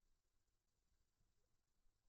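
Near silence: room tone with faint low rumble.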